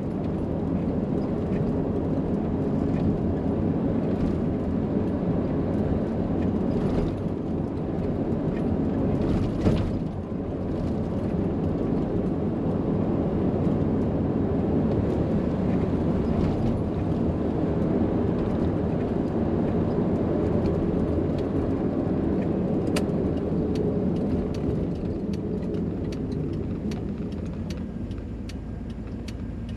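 Steady engine and road noise heard inside the cab of a 1989 Chevrolet Scottsdale GMT400 pickup driving over a bumpy road, with a few light clicks and rattles from loose items on the passenger side, which might be the jack and spare-tire hardware. The noise eases a little near the end.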